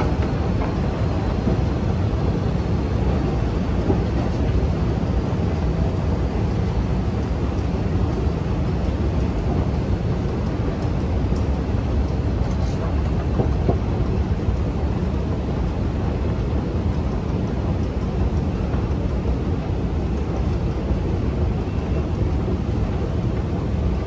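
Long Underground station escalator running: a steady low rumble, with the broad hum of the station hall around it.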